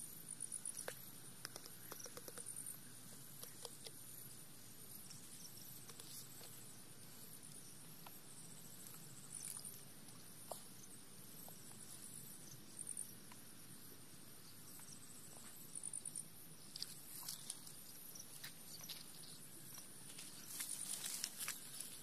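Faint outdoor insect noise: a steady high buzz with short trills every few seconds, over scattered light clicks and rustles that grow busier near the end.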